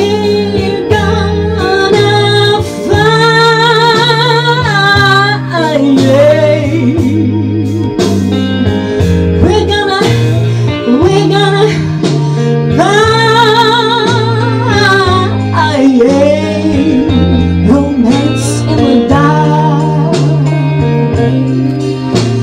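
A woman singing a slow, bluesy ballad into a microphone, holding long wavering notes with slides between them, over a backing track with guitar and a walking bass line.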